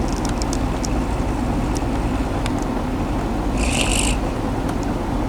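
Chevy pickup truck engine idling steadily, with a few light clicks early and a brief high hiss about three and a half seconds in.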